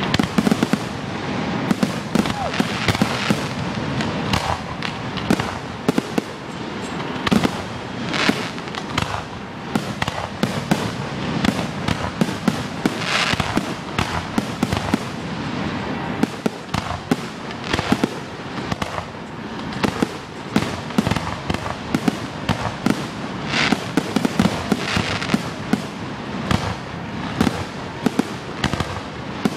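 Aerial firework shells bursting in quick succession, their bangs overlapping one another without a break.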